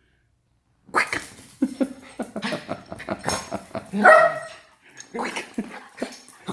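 Pet dog barking and yipping in a rapid series of short barks, starting about a second in, with one longer, louder bark about four seconds in.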